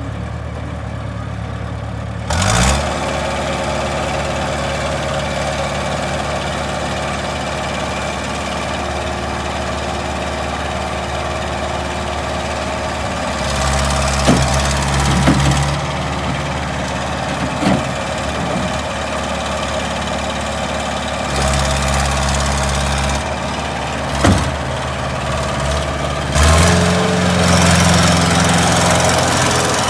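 Bobcat 763 skid steer's diesel engine idling, then throttled up about two and a half seconds in. It runs on at higher speed, its pitch and load shifting several times, with a few sharp knocks along the way.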